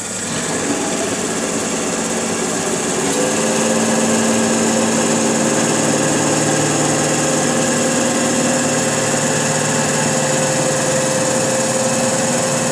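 Small cue lathe's motor running steadily with a hum, spinning a cue butt while an aluminium linen press is held against the Irish linen wrap to flatten it; the hum gets louder about three seconds in.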